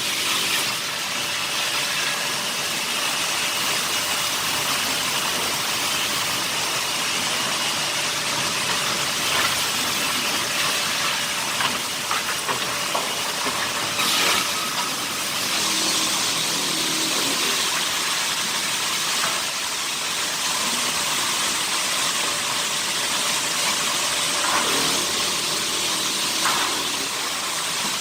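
Sawmill wood-cutting machinery running steadily: a dense, even mechanical din with a few faint steady tones and occasional brief knocks.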